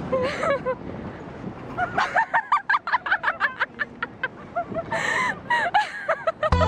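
High-pitched laughter in a rapid run of short bursts starting about two seconds in, with another burst of it around five seconds.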